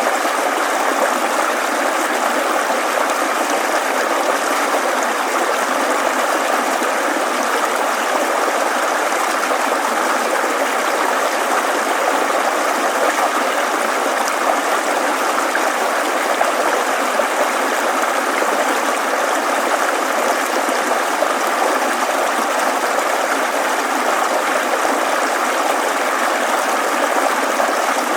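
A stream of running water burbling steadily, an even, unbroken rush.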